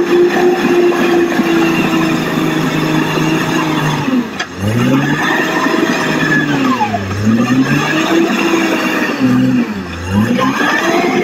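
Crawler bulldozer's diesel engine running at a steady pitch for about four seconds, then dipping and rising and falling in repeated swells about every two seconds as it is revved and loaded.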